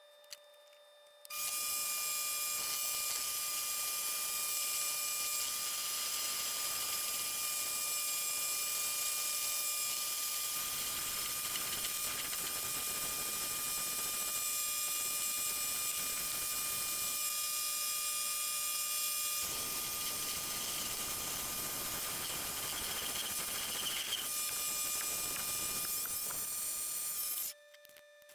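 Mini lathe running, a steady whine over a hissing noise, as a tool on the hand-fed compound slide turns a Morse taper on mild steel stock. It starts about a second in and stops shortly before the end.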